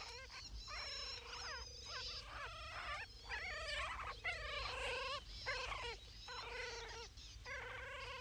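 Wolf cubs whimpering: a run of short, high, wavering whines, about one a second.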